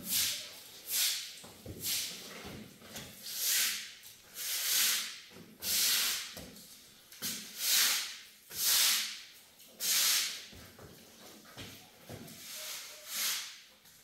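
Repeated swishing strokes of a long-handled floor-cleaning tool pushed over a wet concrete floor, about one stroke a second.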